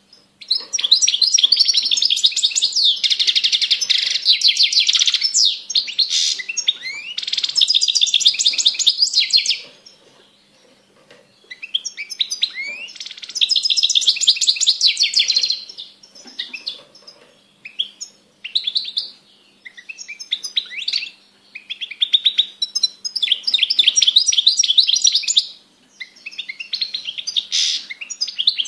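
European goldfinch (Carduelis carduelis) singing: high-pitched, fast twittering song in long bouts of several seconds, broken by short pauses.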